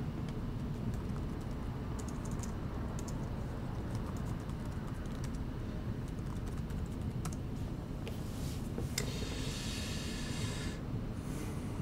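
Typing on a computer keyboard: irregular runs of key clicks. About eight seconds in comes a soft hiss lasting a couple of seconds.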